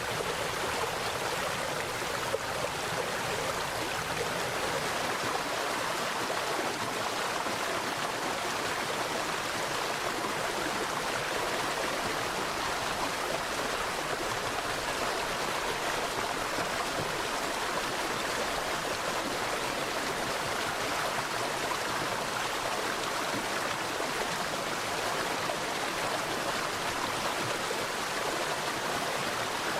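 Mountain valley stream flowing steadily: an even, unbroken rush of water.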